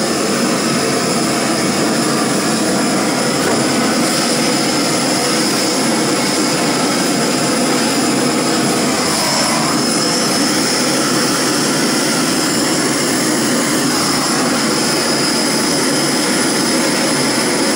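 Two gas torches running with a steady, even flame hiss as they preheat a sleeved aluminium air-conditioner pipe joint over a broad area before soldering.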